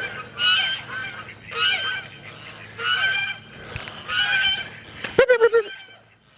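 Domestic fowl calling over and over with loud, honking calls about once a second. A short rattling clatter comes a little after five seconds in.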